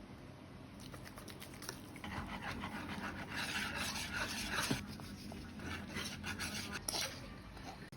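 Irregular scraping and rubbing of food preparation, with many small clicks, busiest in the middle.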